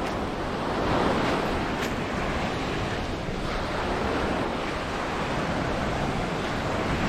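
Sea surf washing steadily onto a beach, with wind buffeting the microphone in low rumbling gusts.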